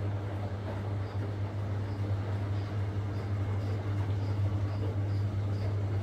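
Siemens front-loading washing machine running, its drum turning with water sloshing inside over a steady low motor hum. A faint high tick repeats about twice a second.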